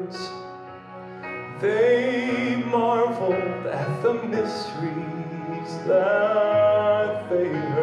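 A man singing a slow gospel ballad into a microphone over instrumental accompaniment, with long wavering held notes, one near the start and a longer one near the end.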